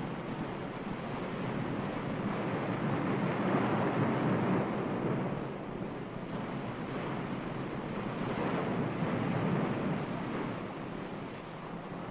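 Ocean surf: a steady rushing wash that swells about four seconds in and again near nine seconds, easing off between.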